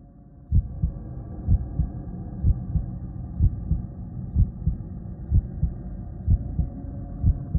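Heartbeat sound effect: deep thumps in lub-dub pairs, about one beat a second, over a low steady hum.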